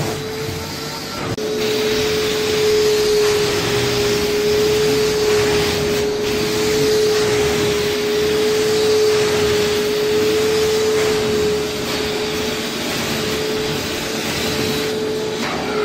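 Carpet extraction machine's vacuum running with a steady whine and a rushing hiss of suction as the wand is pushed and pulled across the carpet. It gets louder about a second and a half in.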